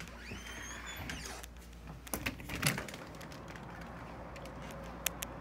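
A door creaking open with a rising squeak, then a few knocks and clicks about two seconds in, as the door is pushed through and swings against its frame.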